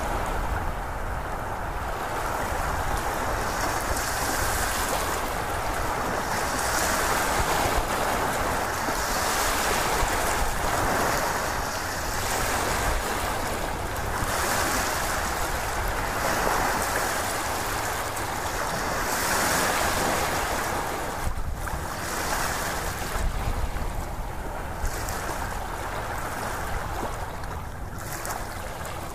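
Ocean surf: a continuous rushing of waves that swells and eases every few seconds.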